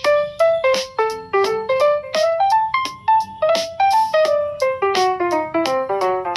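Instrumental piano or electric keyboard melody, a quick run of single struck notes, with no singing.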